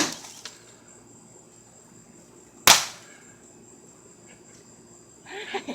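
Two sharp blows on a microwave oven being smashed, one right at the start and one close to three seconds in, each with a short fading tail.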